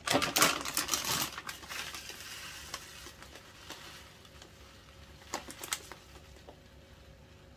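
A plastic packet of dried shredded coconut crinkles loudly for about the first second. Then comes a soft rustling hiss of coconut shreds falling into a glass bowl as they are sprinkled in by hand, with a couple of light clicks later on.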